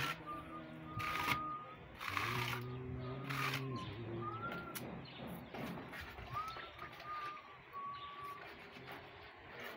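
Masking tape being pulled off the roll and pressed along a wall edge, in several short ripping bursts in the first four seconds. Birds chirp throughout, and a low hum comes and goes twice early on.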